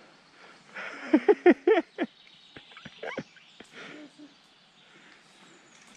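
A man's voice close to the microphone, not words: a quick run of about five short, loud vocal sounds about a second in, then one more about three seconds in.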